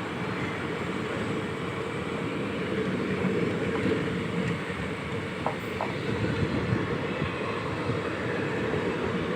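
Train running past on the rails: a steady rumble with rapid knocking of wheels over the rail joints, growing louder and busier about three seconds in. Two short faint squeaks come about halfway through.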